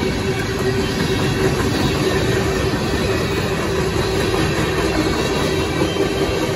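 Freight cars of a BNSF manifest train rolling steadily over a grade crossing, a continuous rumble of steel wheels on rail with a steady high tone held over it.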